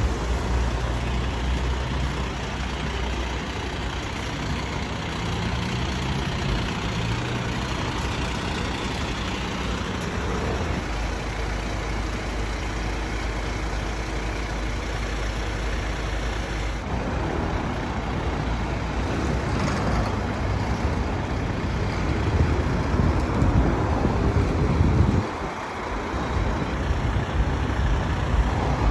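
Fire engine's diesel engine idling with a low steady hum, amid street traffic noise. The sound changes abruptly a little past halfway and gives way to general traffic noise.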